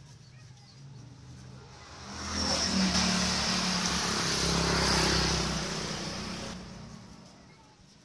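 A motor vehicle engine passing by, its sound swelling for a few seconds and then fading away.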